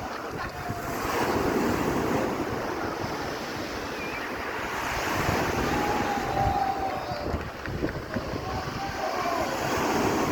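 Stormy sea surf washing ashore, swelling louder about a second in, again midway and near the end, with wind buffeting the microphone.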